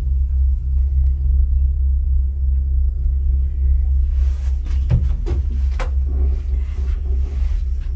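Steady low rumble inside a moving gondola cabin riding along its cable, with a few knocks and clicks about halfway through.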